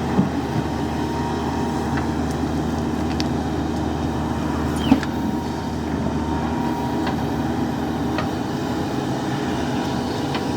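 JCB 3DX backhoe loader's diesel engine running steadily under work, with a couple of sharp knocks from the machine, the louder one about five seconds in.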